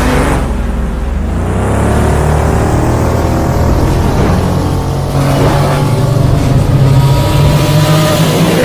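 Engine revving sound effect in a motorcycle-themed video intro, its pitch rising and falling several times over a low steady drone.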